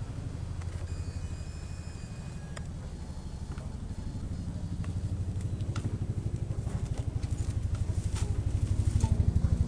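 Motor scooter engine running with a rapid low putter that grows louder toward the end.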